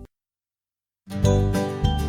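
About a second of dead silence, then a gentle plucked-string lullaby accompaniment starts up with clear note attacks.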